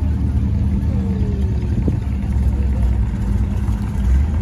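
Classic Chevrolet sedan's engine running at low speed as the car pulls away, a steady low rumble.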